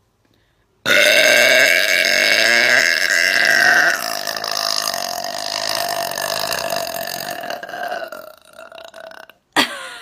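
A woman's long, loud burp, held on a steady pitch for about eight seconds: strongest for the first three seconds, then weaker until it fades out. A short second burst follows near the end.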